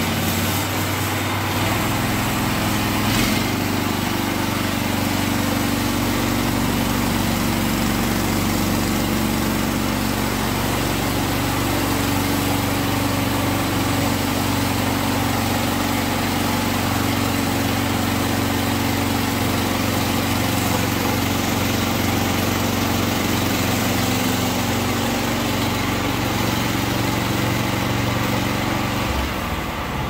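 Norwood LumberMate LM30 portable band sawmill running, its small gas engine driving the band blade as the saw head moves along a log through a cut. The engine note is steady with slight shifts in pitch and eases a little near the end.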